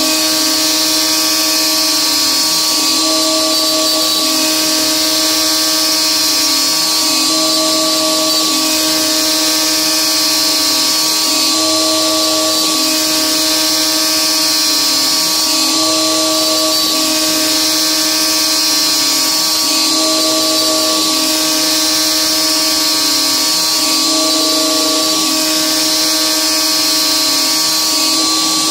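DeWalt DWP-611 router spindle on an X-Carve CNC machine running steadily while a 1/8-inch two-flute carbide endmill takes shallow dry roughing passes in 6061 aluminum. It makes a steady high whine, and the cutting tone changes in a repeating cycle about every four seconds.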